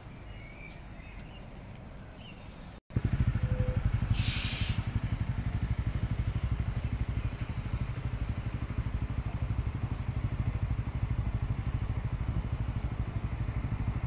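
Wind buffeting a phone's microphone: a loud, fluttering low rumble that starts abruptly about three seconds in and holds steady, with a brief hiss a second later. Before it, faint outdoor background with a few short bird chirps.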